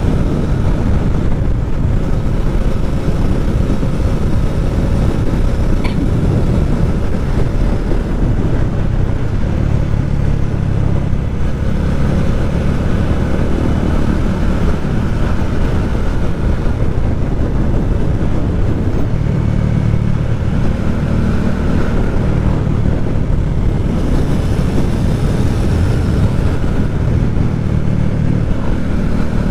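Motorcycle engine and exhaust while riding, the revs rising and falling several times as the bike accelerates and eases off.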